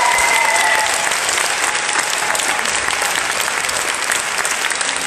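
Audience applauding, with a few high held cheers over the clapping in the first second. The applause thins out a little toward the end.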